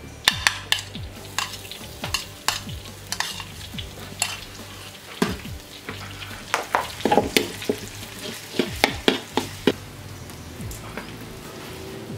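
Chili paste and garlic sizzling in oil in a metal wok, stirred with a metal ladle and spoon that clink and scrape against the wok in frequent sharp clicks.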